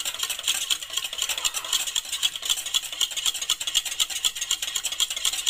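Wire whisk beating a thin liquid mix in a stainless steel bowl, the wires clicking rapidly and evenly against the metal sides.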